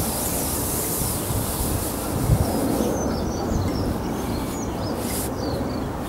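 Outdoor ambience: a steady low rumble of wind on the microphone, with small birds giving many short, high chirps from about halfway through.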